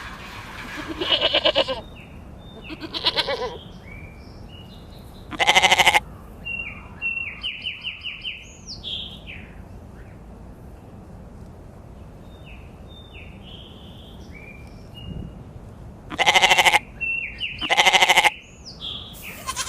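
Sheep bleating: five loud bleats, three close together near the start and two more after a long gap, with birds chirping in the lull between them.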